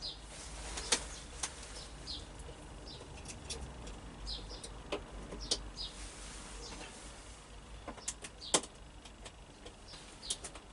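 Scattered light clicks and knocks from hands and tools working on wiring, with a low steady hum underneath and small birds chirping now and then.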